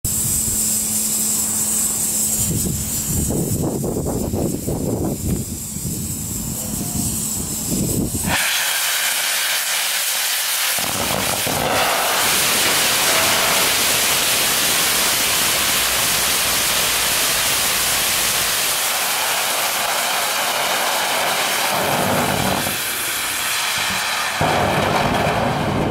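Nitrous oxide/HTPB hybrid rocket motor static firing. It starts suddenly about eight seconds in with a loud, steady rushing hiss, which keeps going and shifts in tone near the end as the burn tails off. Before ignition there is only a low rumble.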